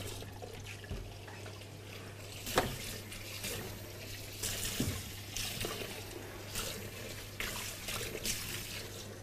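Water from a kitchen tap running and splashing unevenly as cardoncelli mushrooms are rinsed under it in the sink, with a sharp knock about two and a half seconds in. A steady low hum runs underneath.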